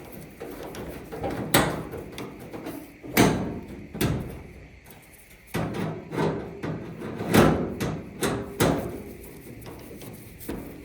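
Sharp metal clunks and knocks, about eight of them at uneven spacing, each ringing briefly: sheet-metal parts of a Maytag dryer being handled and set down as the cabinet is taken apart.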